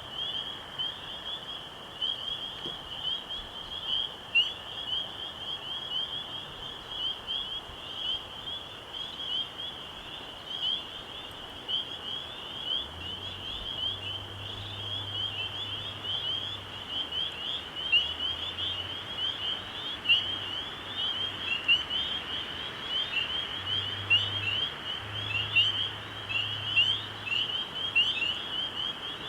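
A night chorus of frogs: many short, high-pitched peeps overlapping without a break, over a steady hiss. A low hum comes and goes from about halfway through.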